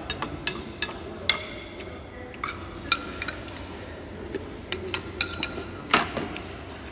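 Metal spoon clinking and scraping against a bowl and plastic meal tray while eating, in sharp irregular clinks with brief ringing. The loudest knock comes about six seconds in.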